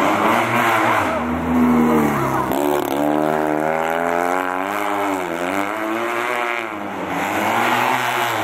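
Fiat 126p rally car's small engine revving hard through corners, the pitch climbing and then falling off several times as the driver lifts and changes gear, with sharp drops about a third of the way in and again near two-thirds.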